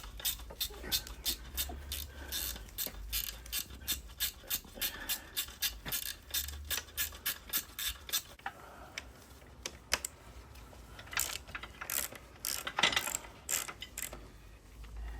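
Ratchet spanner clicking as it is worked back and forth on a bolt, at about three to four clicks a second, then slower, uneven clicks and knocks about eight seconds in.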